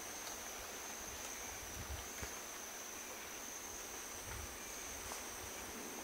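Rainforest insects keeping up a steady high-pitched drone, with a few faint low thumps.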